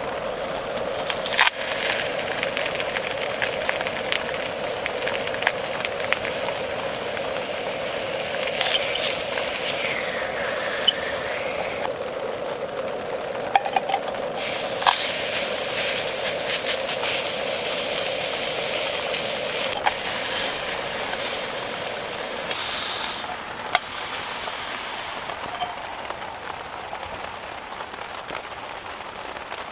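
Block of beef searing in an aluminium pan: a loud sizzle with crackles and a few sharp clicks of chopsticks against the pan. The sizzle drops away twice as the meat is lifted to turn it, and is quieter near the end.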